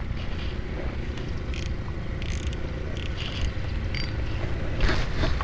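Steady low wind rumble on the microphone, with a few faint clicks and rustles as a spinning rod and reel are handled.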